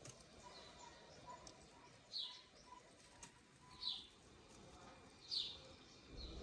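A bird calling: three short, falling notes about a second and a half apart over a quiet background. A few faint clicks come from scissors snipping cherry-tomato stems.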